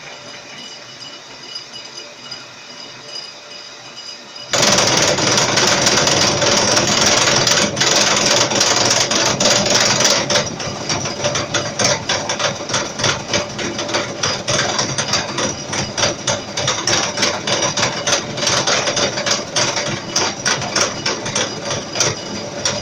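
Milling machine running, then about four and a half seconds in the cutter bites into the round workpiece turning on the rotary table. The cut is loud, with a dense, rapid clicking of interrupted cutting, easing slightly after about ten seconds.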